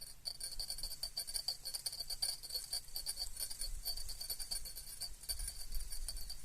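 Insects chirring in a continuous, rapid high-pitched buzz, with a faint low rumble in the second half.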